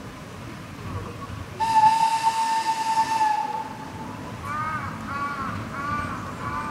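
Whistle of a small tourist train modelled on a steam locomotive: one steady high blast of about two seconds with a hiss in it, starting about one and a half seconds in. From about four and a half seconds in, a crow caws over and over.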